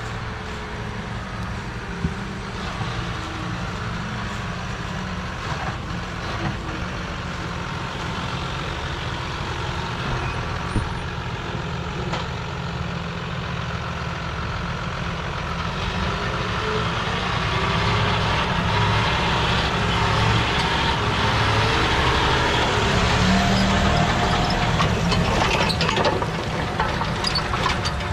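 John Deere 6215R tractor's six-cylinder diesel running steadily as it pulls a tine cultivator across the field. It grows louder through the second half as the tractor comes closer.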